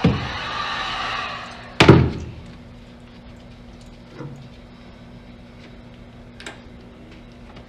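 A steady hiss fades out about a second and a half in, then a loud thump comes near two seconds, followed by two faint knocks.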